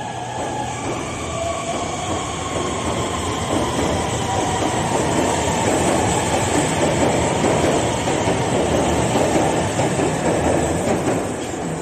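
Metro train pulling out along the track past the platform: the rumble and rail noise of its wheels on the track build steadily, are loudest in the middle and ease slightly near the end.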